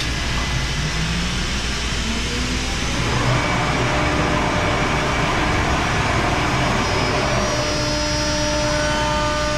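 ShopSabre PRO408 CNC router running a job over a steady low drone. The machine noise grows louder about three seconds in, and near the end a steady whine of several tones sets in as the spindle's bit starts cutting letters into the board.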